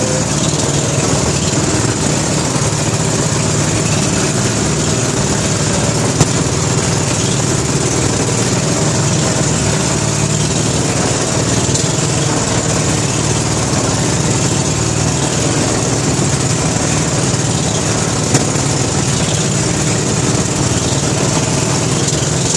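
Motorized outrigger boat's engine running steadily while under way, a continuous loud drone with a constant rush of noise over it.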